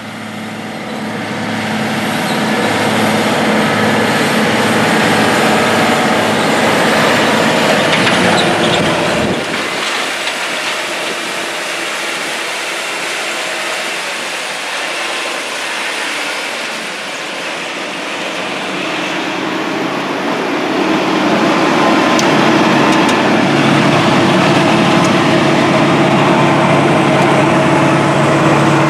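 Case IH 580 Quadtrac's FPT 12.9-litre diesel engine running steadily. About two-thirds of the way through, the engine sound gets louder with a strong steady low hum.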